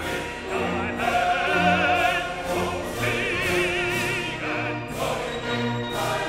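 Operatic music: a classically trained voice singing long held notes with a wide vibrato over an orchestral accompaniment.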